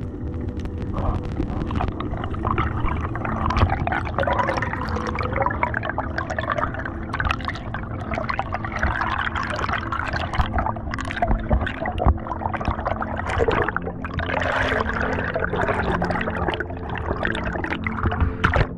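Water rushing and bubbles gurgling past an underwater camera as a freediver swims up from the reef toward the surface.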